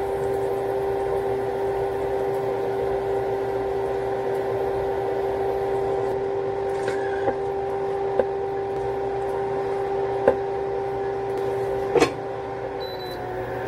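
Steady electric hum of an induction cooktop heating a frying pan. A fork and spatula tap lightly against the pan three times, and a glass lid clinks down onto it about twelve seconds in.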